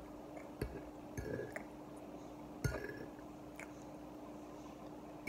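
A metal fork clinking against a ceramic plate a few times while picking up food, with sharp separate clinks spread over several seconds, over a faint steady hum.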